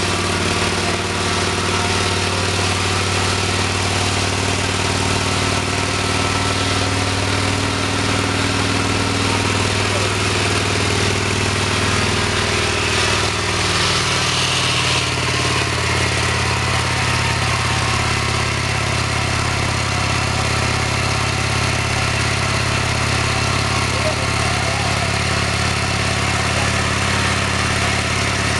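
Vintage Indian motorcycle engine running at a steady idle, its pitch shifting slightly about halfway through.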